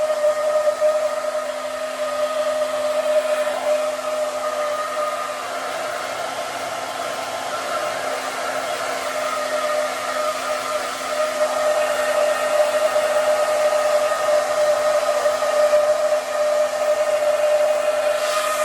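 Hand-held hair dryer blowing continuously while drying hair: a steady rush of air under a constant motor whine, its loudness swaying a little as the dryer moves.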